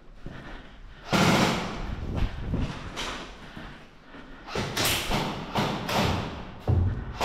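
Thuds and rough scuffing noises from movement close to the microphone, with a short low thump near the end.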